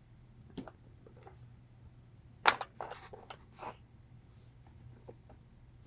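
Scattered light clicks and rustles of keyboard keycaps being handled, the sharpest click about two and a half seconds in followed by a short run of smaller ones.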